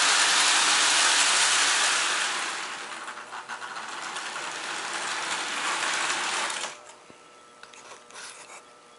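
Marx Santa Fe toy diesel locomotive running around its track, its electric motor whirring and wheels clattering along the rails. The sound eases off after about two seconds, picks up again, then cuts off abruptly about two-thirds of the way through.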